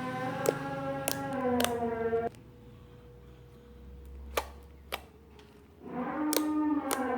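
Sharp, separate clicks, a few each second, typical of crunchy slime being squeezed and popped, over sustained background music; the music stops for about three and a half seconds in the middle, leaving only the clicks.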